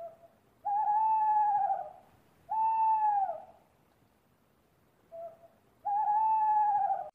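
Owl hooting: three long drawn-out hoots of about a second each, slightly arched in pitch, with a brief short note just before the first and the third.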